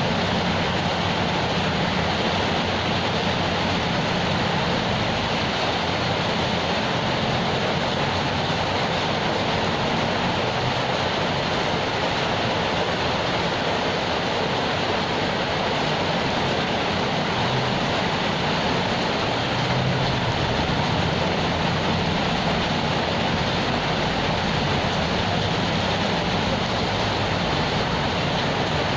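Steady rain falling, an even unbroken hiss of drops.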